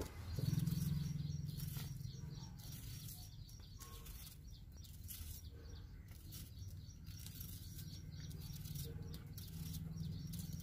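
Faint, irregular snips and cutting clicks from scissors cutting green chillies and a knife slicing onion, over a steady low hum. Birds chirp outdoors.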